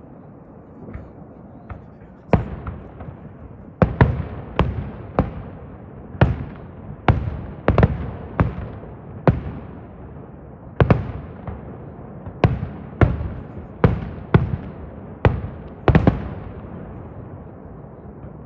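Fireworks at a display finale going off as a rapid string of about twenty loud bangs, each trailing off, with a few faint pops just before the first.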